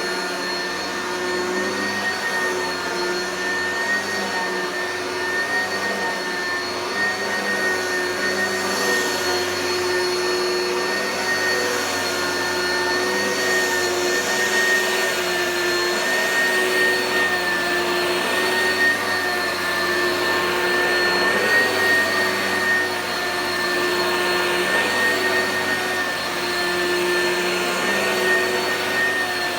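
Oreck vacuum cleaner running continuously: a steady motor whine over rushing air, its pitch and loudness wavering slightly.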